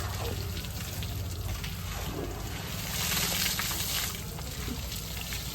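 Water splashing and spraying as an elephant bathes itself, with a louder, hissing spray about three seconds in that lasts about a second.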